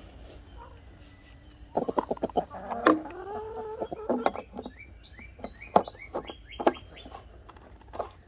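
Hens clucking and calling, with one drawn-out call that rises in pitch about two and a half seconds in, followed by a string of short rising notes. A quick run of sharp clicks comes just before the call, and a few single sharp knocks fall among the clucks.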